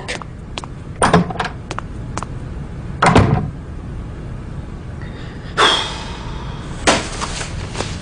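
A few light footsteps, then a door slammed shut about three seconds in. Later a short rustle and a clack as cardboard file folders are handled.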